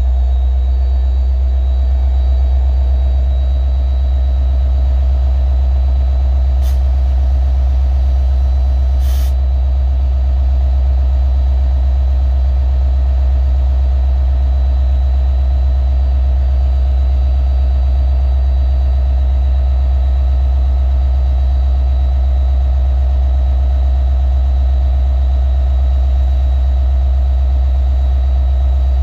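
EMD 710 two-stroke diesel engine of an SD70LC locomotive idling steadily after start-up, with a deep, even rumble. Two brief clicks come about two and a half seconds apart.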